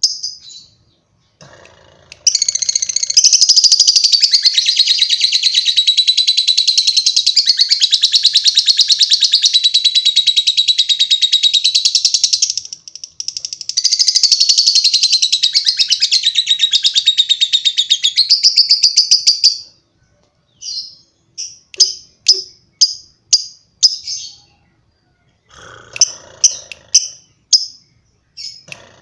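Lovebird singing a long ngekek: a rapid, high-pitched chattering trill that runs unbroken for about ten seconds, breaks briefly, and goes on for about six seconds more. After that it gives separate sharp chirps, about two a second.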